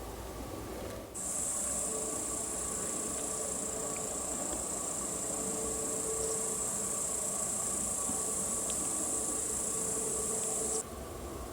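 Crickets trilling: a steady, unbroken, high-pitched buzz that starts suddenly about a second in and cuts off suddenly near the end.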